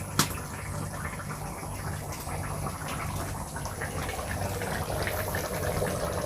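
Water pouring into a cooking pot, the sound slowly building, with a single sharp click just after the start.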